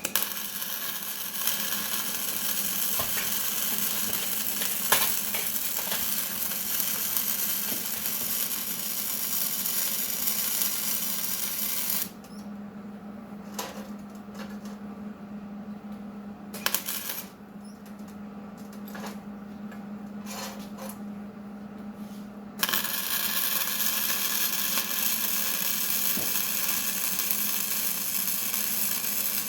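Electric arc welding: a steady crackling sizzle for about twelve seconds that stops, and after a pause with a few metallic clicks starts again about 22 seconds in. A steady low hum runs under it throughout.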